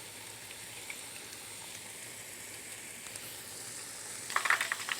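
Pancake-batter corn dogs frying in hot oil: a steady sizzle with small scattered pops, turning into louder, denser crackling about four seconds in.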